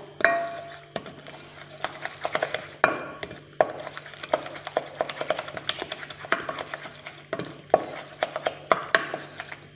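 Wooden spoon beating a soft margarine, sugar and egg-yolk mixture in a glass bowl, with quick, irregular knocks and clicks of the spoon against the glass.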